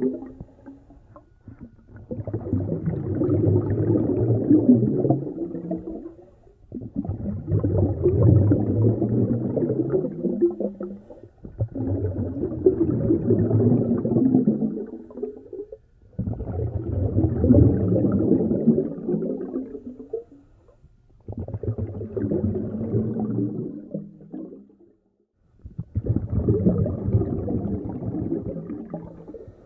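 A snorkeler breathing slowly and heavily through a snorkel, heard muffled through the underwater camera: about six long, rasping breaths, each lasting three to four seconds, with a short pause between them.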